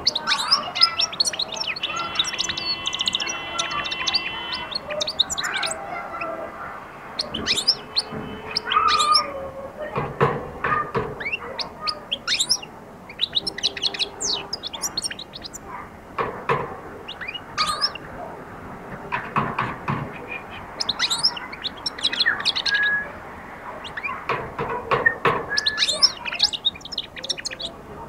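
Caged European goldfinch singing: rapid, high twittering chirps and trills in bursts that start and stop throughout.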